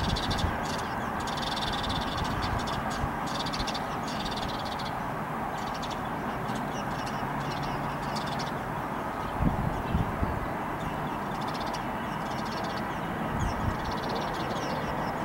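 Birds chirping and calling in short bursts over a steady background hum, with a couple of low bumps a little past halfway.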